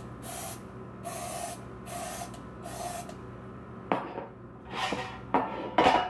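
Aerosol can of non-stick cooking spray hissing in four short bursts over the first three seconds as a metal bread pan is coated. After that come a few sharp knocks as the metal bread pans are handled.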